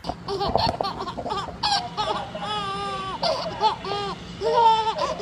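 Baby laughing in a string of short, high-pitched giggles and squeals.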